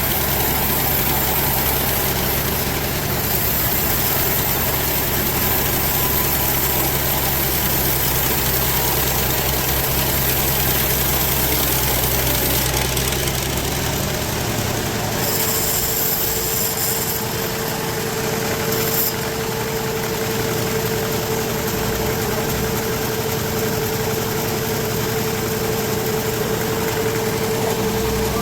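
Sawmill machinery running steadily with a low engine hum. About halfway through the hum changes and a steady whining tone sets in.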